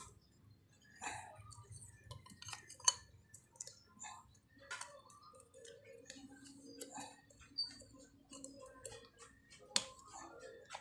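Light clicks and metallic clinks of a spin dryer motor's end bracket and bushing being handled and fitted back onto the motor housing, with a sharper click about three seconds in and another near the end.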